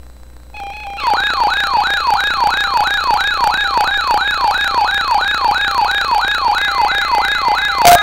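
Electronic siren yelping: rapid rising pitch sweeps, about three a second, over a steady tone. It comes in about half a second in and is loud by about a second in.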